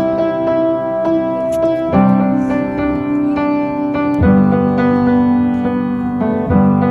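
Background music of sustained piano-like chords, changing about every two seconds.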